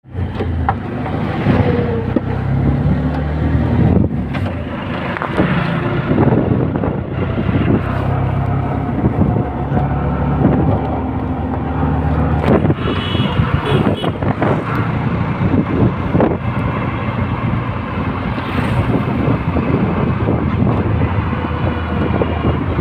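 Engine of a small vehicle running steadily as it drives along a street, its low hum rising and falling a little with speed, under a rumble of road noise and wind buffeting the microphone.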